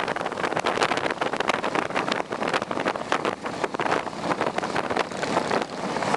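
Heavy wind buffeting the microphone of a camera on a moving motorcycle, over the motorcycle engine running at cruising speed.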